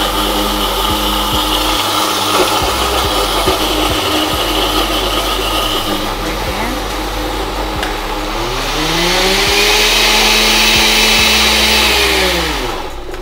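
Countertop blender running as it purees orange juice, papaya and carrot. About eight seconds in, the motor speeds up with a rising whine and the sound gets louder. It holds at the higher speed, then winds down and stops near the end.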